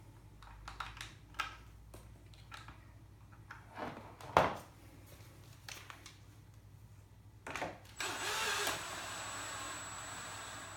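Light clicks of parts and tools being handled, with one sharp knock about four seconds in, then a cordless drill fitted with an Allen key bit runs steadily for about three seconds near the end, driving in the bolt that clamps the balance bike's handlebars to the front forks.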